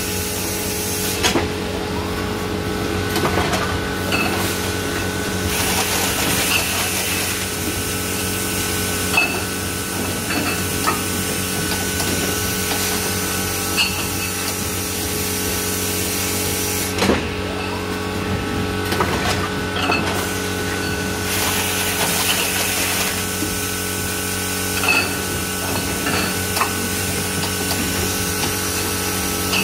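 Mondo & Scaglione F.I.I.N.1 case-packing monoblock running: a steady machine hum with several steady tones, a sharp clack every few seconds from the mechanism as bottles are gripped and set into cartons, and two stretches of hiss.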